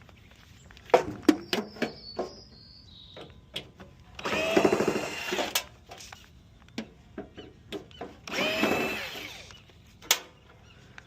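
A handheld power tool runs in two short bursts of about a second each while parts of a tankless water heater are worked apart. Sharp metal knocks and clanks come in the first couple of seconds.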